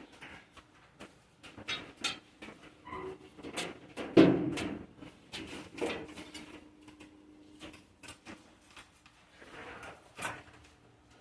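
Handling noise from work on a truck's wiring: scattered clicks, rustles and knocks, with one louder clunk about four seconds in.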